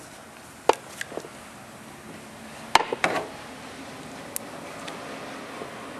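A hand-pump grease gun being worked on a mower's grease fitting, giving a few sharp, irregular clicks and knocks.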